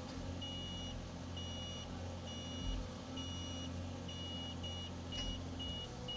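Mini excavator's warning alarm beeping at a steady high pitch, about once a second and then about twice a second from a few seconds in, over the Cat 305 CR's diesel engine running.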